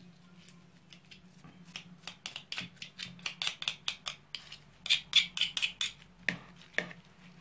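Metal garlic press being worked and crushed garlic scraped off its perforated plate with a utensil: a quick run of sharp metallic clicks and scrapes, sparse at first and building up about two seconds in.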